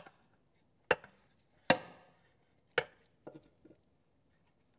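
Sharp metallic clinks as a small pin is worked into its hole in the Sunbeam 1000HP's gearbox casing: three loud clinks about a second apart, the second ringing briefly, then a few lighter taps.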